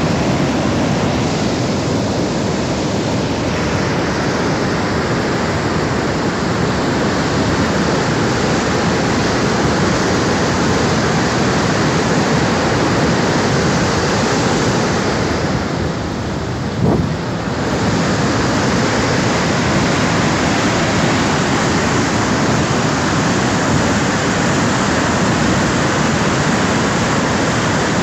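Fast-flowing floodwater rushing with a loud, steady noise that dips briefly about sixteen seconds in.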